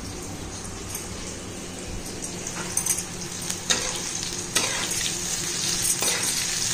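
Bitter gourd slices sizzling as they fry in oil in a kadai, stirred with a spatula. From about two and a half seconds in, the spatula clicks and knocks against the pan several times.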